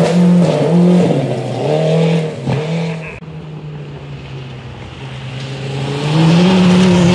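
Rally car engine on a gravel stage revving up and down through quick gear changes as the car drives away. About three seconds in the sound changes abruptly to a second rally car's engine, at first quieter and steady, then rising in pitch and growing loud near the end as it approaches.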